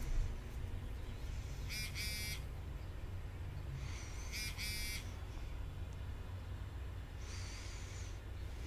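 Phone text-message alert tones: two short, high electronic chimes about two and a half seconds apart, then a fainter one near the end, over a steady low drone.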